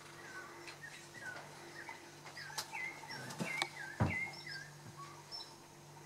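Birds calling: short chirping notes that bend up and down in pitch, coming faster after the first couple of seconds. A few sharp clicks and a louder knock about four seconds in, over a faint steady hum.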